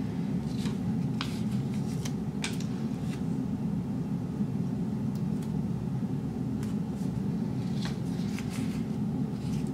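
Paper sticker sheets and planner pages being handled as stickers are peeled and pressed on: scattered light paper rustles and small taps over a steady low hum.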